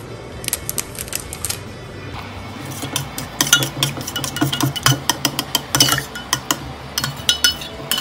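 Steel spoon stirring curd in a stainless steel bowl, clinking and scraping against the bowl's sides. The clinks come faster and thicker from about three seconds in.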